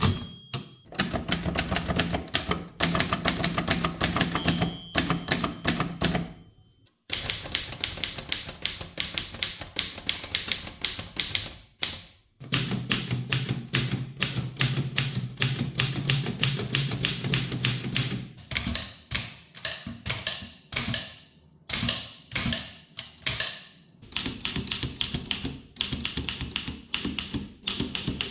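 Typing on a succession of typewriters: quick runs of typebar clacks against the platen, changing from one machine to the next after short pauses. About four and a half seconds in, the margin bell gives a single ding.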